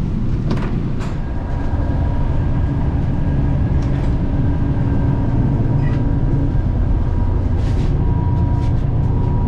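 Interior of a diesel passenger train under way: a steady, loud low rumble with a faint steady whine over it and a few light clicks.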